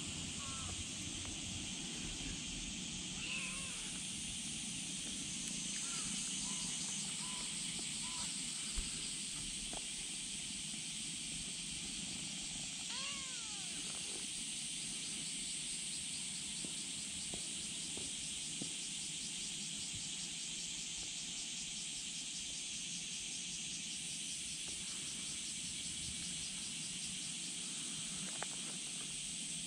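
A kitten meows once about thirteen seconds in, a single call that rises and falls, over a steady high outdoor hiss. Two brief light taps, one near nine seconds and one near the end.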